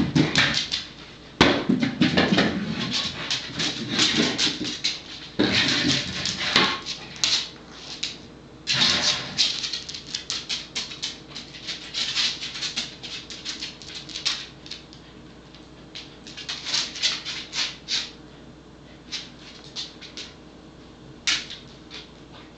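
Hard plastic Buster Cube treat-dispensing toy being nosed and rolled around by a corgi, the small treats inside rattling and the cube clattering in repeated bursts. The bursts are densest in the first half and thin out to occasional clicks in the second half.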